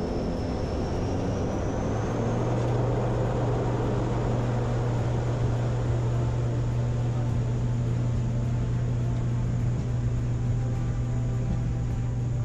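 Airliner engines spooling up to takeoff power during the takeoff roll, heard from inside the cockpit: a high whine rises over the first two seconds, then a steady loud drone with a strong low hum.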